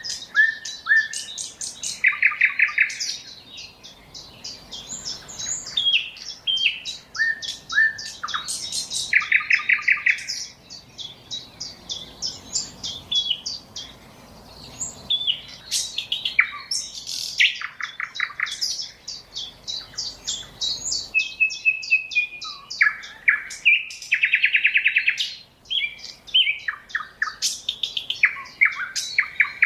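Nightingale singing a long trilling song: varied phrases of fast repeated notes and rattling trills, separated by short pauses.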